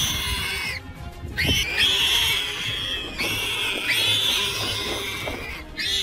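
Warthog squealing high and drawn-out while a leopard holds it down, with a short break about a second in; background music plays underneath.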